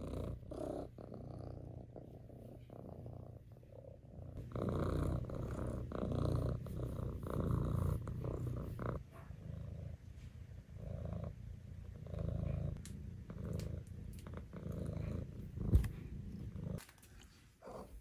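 Maine Coon kitten purring close up, a steady pulsing rumble that grows louder about four seconds in. A single sharp knock comes near the end.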